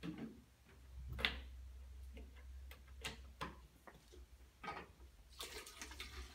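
A plastic jug set down on a table with a thud, then several light knocks and clinks as a measuring cup and plastic funnel are handled. Near the end, liquid is poured from the cup through the funnel into a plastic spray bottle.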